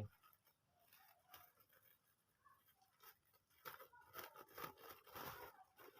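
Faint rustling, crinkling and small clicks of packaging being opened and handled by hand, becoming louder and busier after about three and a half seconds.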